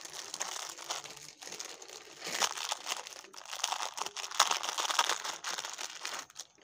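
Thin clear plastic jewellery packet crinkling as hands open it and pull out a necklace: a busy run of crackles, heaviest in the middle.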